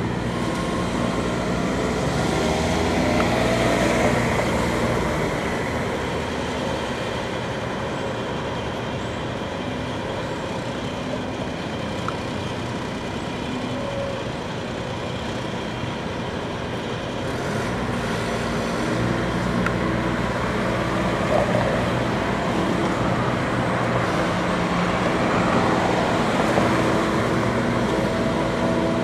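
Madvac sidewalk litter vacuum running, its engine and suction fan making a loud, steady drone that swells again in the second half, with city traffic around it.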